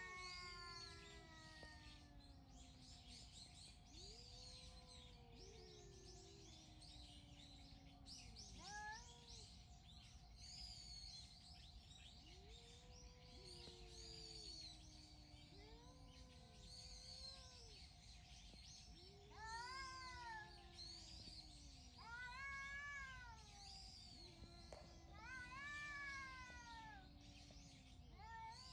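Two cats yowling at each other: long, low, drawn-out wails that slowly fall, answered every few seconds by higher rising-and-falling yowls, with faint bird chirps behind.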